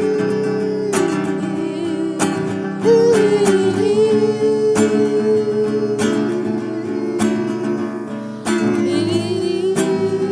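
Song with acoustic guitar strumming under a voice singing long, wavering held notes.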